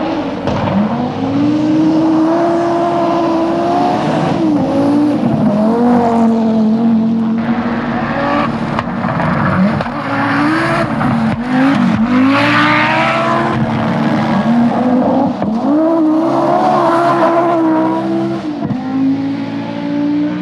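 Audi Quattro rally car's turbocharged five-cylinder engine at full rally pace, the revs climbing hard and dropping sharply again and again as the driver shifts gear and lifts for corners.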